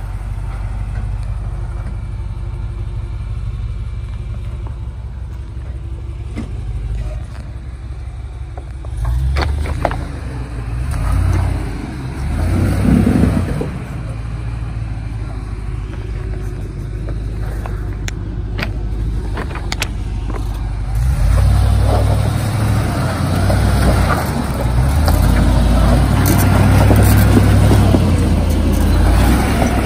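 Range Rover P38 engine running at low speed as the 4x4 crawls up a rock step off-road. It surges three times a third of the way in, a few sharp knocks follow, and it works harder and louder for the last third as the wheels climb the rocks.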